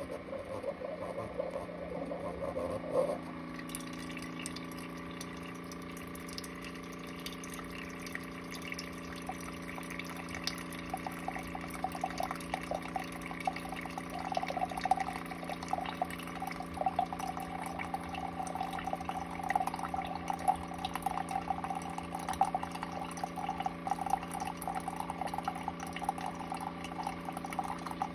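Single-serve brewing machine running, its pump giving a steady electric hum that shifts in tone about three seconds in. A thin stream of liquid trickles and splashes into a ceramic mug, growing busier from about ten seconds.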